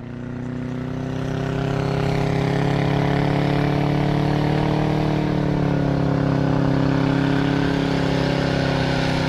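Small tracked snowcat's engine running steadily as it drives through deep snow, fading in over the first couple of seconds, its pitch dipping slightly midway and then rising again.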